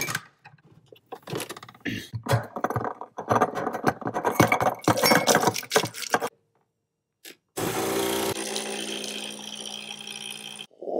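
Coffee capsules clattering and clicking as a hand rummages through a glass jar of them, then a capsule espresso machine's pump buzzing steadily for about three seconds as it brews into the mug.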